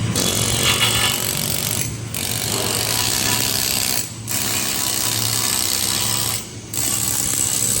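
Electric arc welding a full-penetration weld on a single-bevel joint with a backing bar: a steady crackling hiss that stops briefly three times, about two, four and six and a half seconds in. A low steady hum runs underneath.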